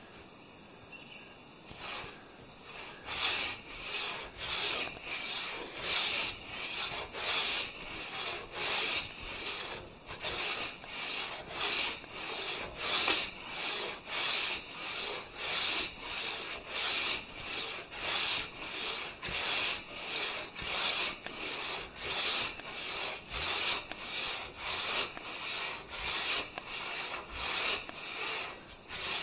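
Hand saw cutting through a maple log in steady back-and-forth strokes, each stroke a rasp, about three every two seconds, starting about two seconds in.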